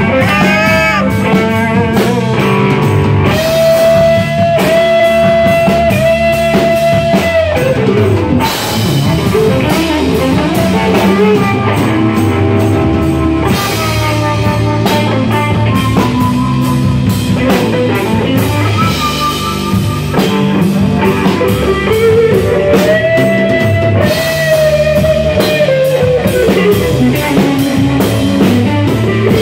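Live blues-rock band playing loud: an electric guitar lead with long held notes that bend up and down, over drums and a second guitar.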